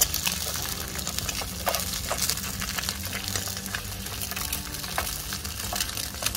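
An egg frying in hot oil in a nonstick pan on a portable gas stove: steady sizzling and crackling, with many small pops.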